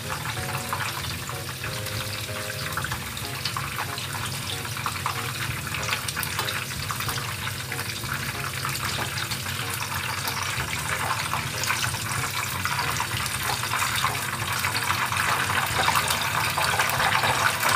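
Hot cooking oil sizzling and crackling steadily around tofu pieces deep-frying in a pan, growing louder near the end.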